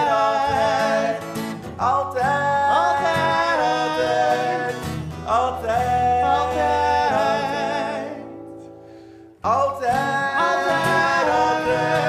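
Two men singing long, drawn-out notes in harmony without words, over a strummed acoustic guitar. The music fades away about eight seconds in, then comes back in full.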